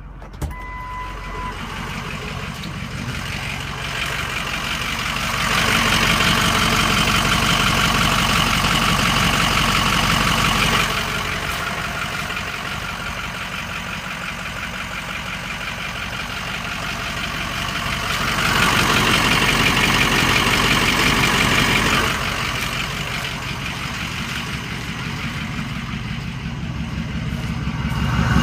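Ford 6.0L Power Stroke V8 turbo-diesel idling with a fast, even knocking tick, like a sewing machine, which the owner thinks is an injector. The sound grows louder twice for a few seconds, and there is a short beep about half a second in.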